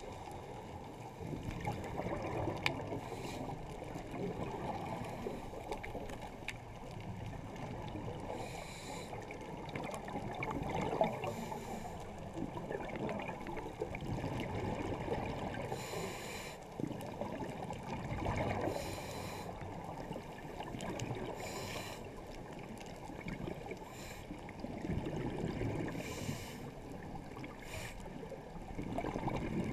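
Scuba diver breathing underwater through a regulator, with breaths and rushes of exhaled bubbles coming every few seconds, muffled through the GoPro's waterproof housing.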